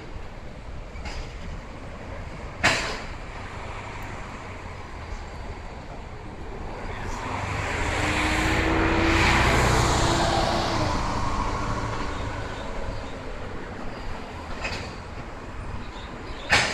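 Loaded coal hopper wagons rolling past on the rails: a steady rumble of steel wheels, with a sharp clank about two and a half seconds in and another near the end. Midway a louder rush swells and fades over several seconds, carrying a low hum that falls slightly in pitch.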